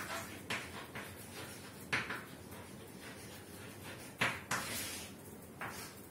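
Chalk tapping and scraping on a chalkboard during handwriting: a string of short taps and scratches, the loudest about two and four seconds in.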